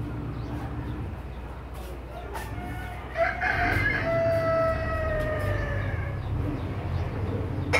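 A rooster crowing once, starting about three seconds in: a short opening phrase, then a long held note that falls slightly in pitch. A steady low rumble runs underneath.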